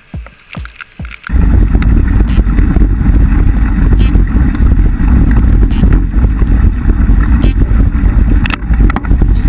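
A low, evenly repeating thump, then about a second in it cuts to a loud, dense rumble of wind buffeting an action camera's microphone, with the rattle and clicks of a mountain bike jolting over a rough gravel track.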